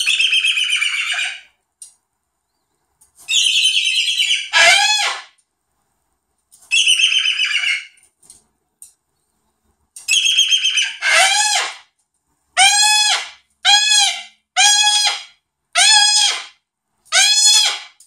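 Cockatoo screeching loudly. First come several harsh, raspy screeches a few seconds apart, then from about halfway a run of calls roughly once a second, each rising and falling in pitch.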